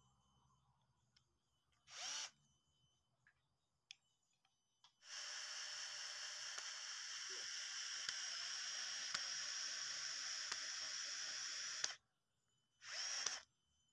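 Cordless drill boring through two bamboo tubes: a brief spin-up about two seconds in, then a steady drilling run of about seven seconds starting around five seconds in, and another short burst near the end.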